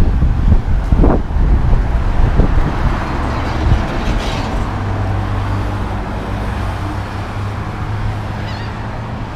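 Wind buffeting the microphone in heavy gusts, easing after about four seconds into a steady low hum of traffic.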